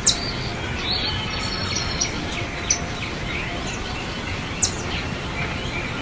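Outdoor ambience of birds chirping and calling over a steady background hiss, with two sharp, high falling calls, one right at the start and one near five seconds in.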